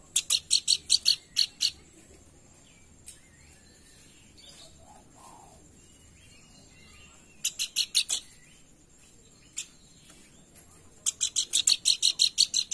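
Pelanduk bukit songbird calling in fast rapid-fire series of sharp, high, evenly repeated notes, about eight a second. One burst comes at the start, a short one a little past halfway, and a longer one from near the end, with faint softer chirps in the gaps.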